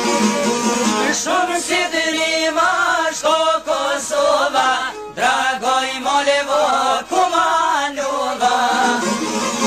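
Albanian folk song: men singing a verse together over a steady held string accompaniment, with instrumental playing before and after the sung lines.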